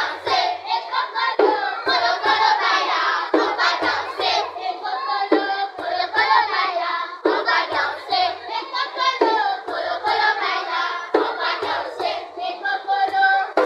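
A group of children singing a traditional song together, with hand clapping in rhythm, a sharp clap roughly every two seconds.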